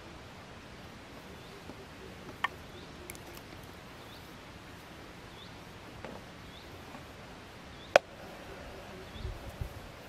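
Hand digging and scraping in dry dirt outdoors, with a faint short chirp repeating every half second or so. A click about two and a half seconds in, and a much louder sharp click about eight seconds in, with low knocks and rumbling near the end.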